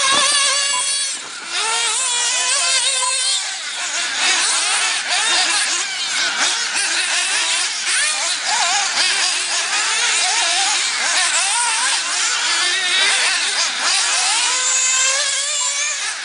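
Several 1/8-scale nitro RC buggy engines buzzing at high pitch, overlapping, each pitch rising and falling as the buggies accelerate out of corners and back off into them.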